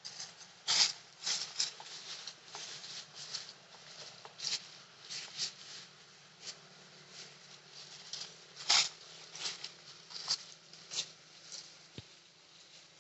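Irregular rustling and crackling: a quick, uneven run of short scratchy noises, loudest about a second in and again near nine seconds.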